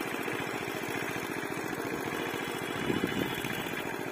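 A small engine running steadily with a fast, even chugging pulse.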